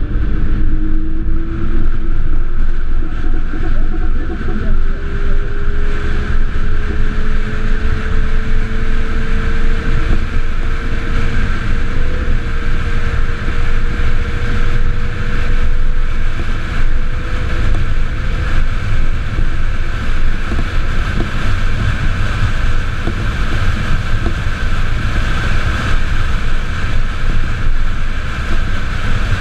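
Wind noise and road rumble on the onboard microphone of a solar race car at speed. A thin whine from its electric drive motor rises slowly in pitch through the first half as the car gathers speed on the straight, then fades into the wind.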